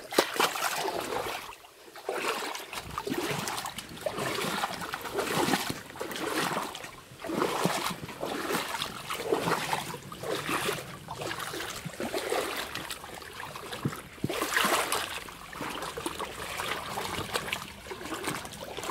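Footsteps wading through shallow river water, each step a splash and slosh, about once a second.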